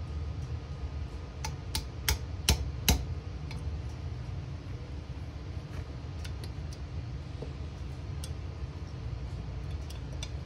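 Hammer tapping a steel pin punch five quick times, about three taps a second, to drive the front trigger pin out of a Remington 700 action. A few faint metal clicks follow, over a steady low hum.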